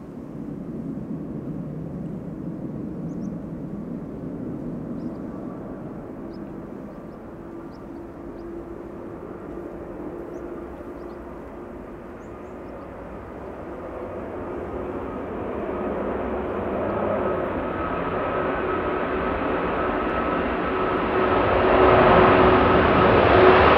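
An airliner's engines, a steady drone with a low hum and a higher whine running through it, growing steadily louder as the aircraft approaches and loudest near the end.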